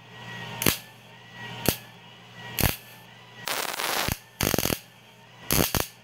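Miller MIG welder arc striking in short bursts: three brief pops in the first three seconds, then three longer runs of welding, over a steady low hum. The wire feed has a freshly repaired drive wheel and loose drive-roll tension, and the welder takes the stop-start arc for the erratic wire feed not yet cured.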